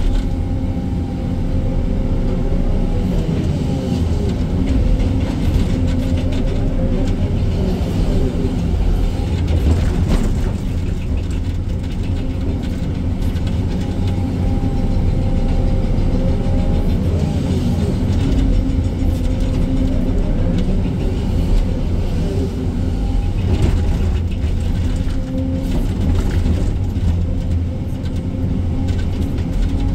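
Excavator's diesel engine and hydraulics running steadily under load while digging, with a tone that comes and goes several times.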